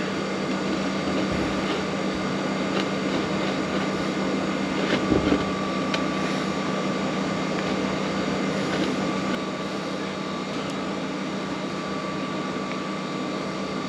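A steady mechanical hum with a constant low tone, and a few faint light clicks. The hum drops a little in level about two thirds of the way through.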